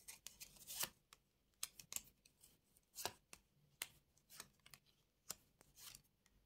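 Faint, irregular clicks and soft taps of playing cards being handled and laid down on a table.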